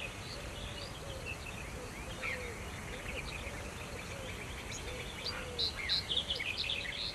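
Birds chirping outdoors: many short, high chirps from several birds, over a lower note that rises and falls, repeated about twice a second.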